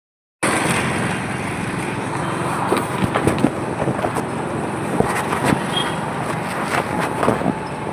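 Engines running over loud outdoor noise, with a string of sharp knocks and clatters between about three and seven seconds in.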